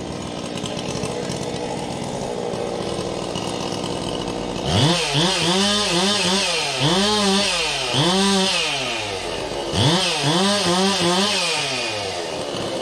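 Two-stroke chainsaw running steadily, then from about five seconds in revved hard again and again, about five times, its pitch climbing and sagging on each rev.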